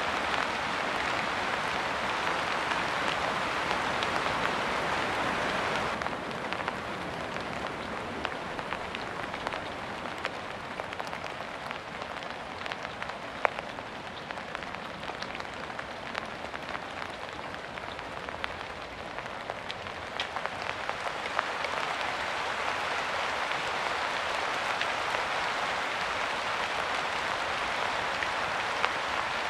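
Steady rain falling, with individual drops ticking through the hiss. It eases slightly about six seconds in and grows heavier again after about twenty seconds.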